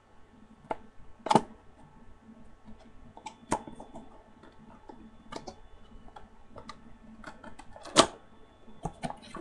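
Scattered sharp clicks and taps of packaging being handled as a fishing reel's box is opened, the loudest about a second in and again near the end.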